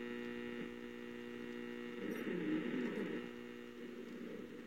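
Steinite 261 vintage radio's loudspeaker giving out a steady hum, with a weak broadcast voice coming through for about a second around two seconds in.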